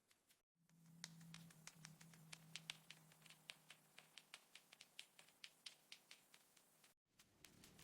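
Faint, quick light clicks and taps on mechanical keyboard keys, several a second and uneven, as a mouse moves over the keyboard. A low hum sits under them for the first few seconds and fades.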